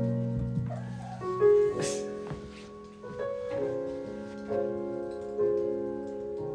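Background piano music, with a new chord struck about every second and left to ring. A brief sharp knock about two seconds in.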